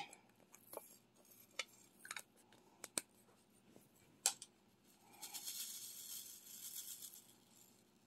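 Faint small clicks and taps of diamond-painting work, a drill pen setting resin drills onto the sticky canvas, about half a dozen spread over the first few seconds. Then a soft rattling rustle for about two seconds.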